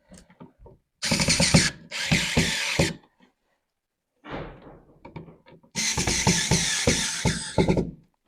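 Electric screwdriver running in spurts as it drives an outlet's mounting screws into the wall box: two short bursts about a second in, then a longer run of about two seconds near the end.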